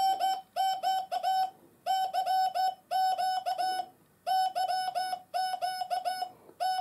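MFJ-557 Morse code practice oscillator sounding one steady note, keyed on and off by a straight key into short and long beeps that spell out "CQ DX" in Morse code.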